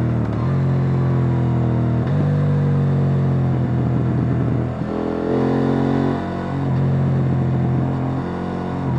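KTM 890 Duke R's parallel-twin engine through its stock exhaust, running under throttle on the road. Its note breaks briefly about half a second, two seconds and five seconds in, and falls in pitch between about five and six seconds in.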